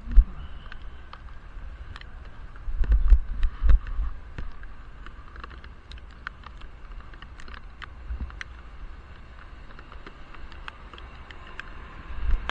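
Riding noise heard muffled through an action camera's waterproof case on a cyclist's helmet: a low rumble of wind and road with a burst of heavier low thumps about three seconds in, and scattered sharp ticks of raindrops hitting the case.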